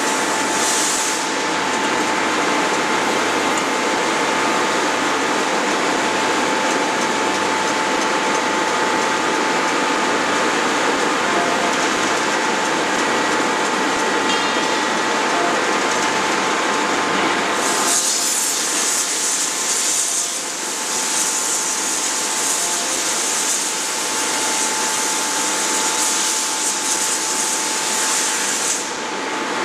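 Steady running noise of a 16-ton hydraulic closed-die forging hammer and its hydraulic power unit, with a constant whine. About two-thirds of the way through, a loud high hiss joins and stops shortly before the end.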